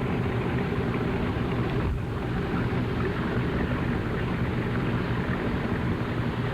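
Boat engine running steadily at an even pitch, with a rushing noise over it.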